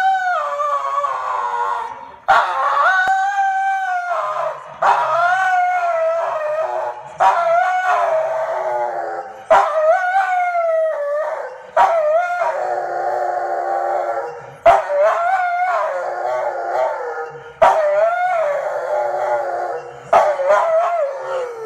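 Chesapeake Bay retriever howling over and over: about nine long howls, each lasting about two seconds, rising then falling in pitch, with short breaks between.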